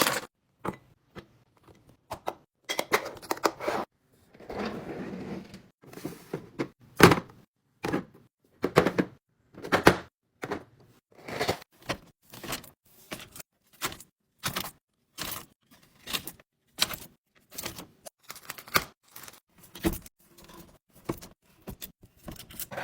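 Snacks and containers being handled and set into a fridge drawer: a run of irregular short knocks, clicks and rustles, a few each second.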